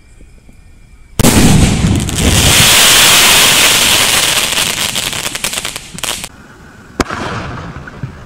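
Pandyan Fireworks' Fly Kingfisher crackling aerial shell breaks with a sudden loud burst about a second in. A dense crackle of countless small pops follows, lasting about five seconds and fading out. A single sharp crack comes near the end.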